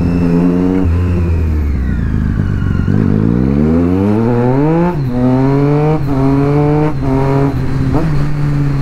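Triumph Street Triple's inline three-cylinder engine pulling hard through the gears. The engine eases off at first, then climbs steeply in pitch from about three seconds in. After that come quick clutchless upshifts about once a second, each dropping the pitch before it climbs again, until the engine settles into a steady cruise near the end.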